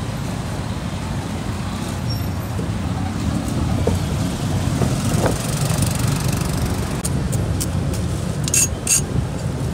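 Steady low rumble of street traffic with motorbikes passing. Over the last few seconds a cleaver chops roast pork on a wooden chopping block, making a quick run of sharp knocks.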